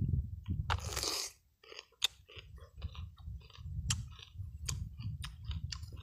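A person biting into a raw vegetable stick loaded with chili paste and chewing it, with a loud crunch about a second in, then crunchy chewing and sharp mouth clicks about three times a second. Wind rumbles on the microphone underneath.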